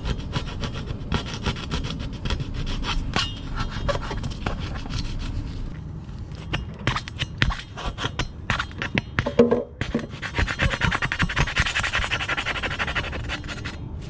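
A plastic knife scraping stuck-on spots, taken for tar, off the inside of a car wheel: rapid, repeated scraping strokes, with a denser and brighter run of scraping about ten seconds in.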